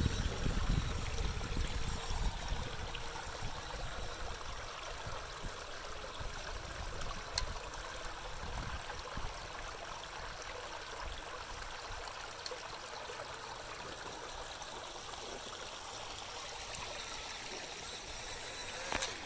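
Shallow creek water running and trickling steadily over rock, with a low rumble in the first couple of seconds that then fades, and a single sharp tick about seven seconds in.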